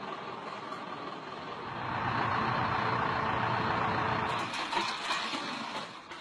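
Tipper truck's engine running, louder for a couple of seconds while the dump bed is raised to tip asphalt. It is followed near the end by short scrapes and knocks as the asphalt is spread around a manhole.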